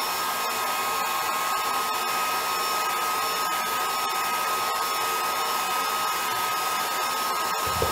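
Hair dryer blowing steadily on a gentle setting, a constant rush of air with a steady whine, warming the edge of a tablet screen to loosen its adhesive before prising it off.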